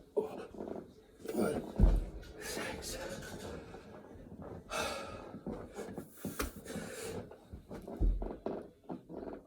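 Heavy panting breaths from a person mid-burpee workout, worn out by the reps, with two dull thuds, one about two seconds in and one near the end, as the body comes down to the floor.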